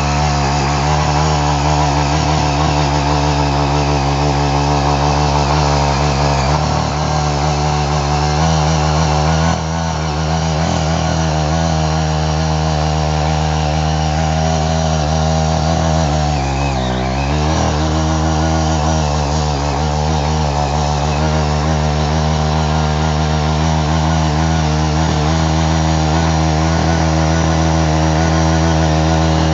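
Small engine of a CY walk-behind hand tractor (rotary tiller) running steadily while its tines churn through soil. A little past halfway the engine's pitch dips briefly, then recovers.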